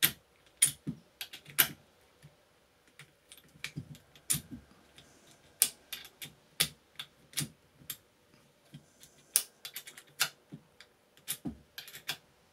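Irregular sharp clicks and clacks of the Banggood 18V impact driver's quick-release hex chuck being worked by hand, the collet and bit knocking and rattling. The collet is sticking and will not slide forward.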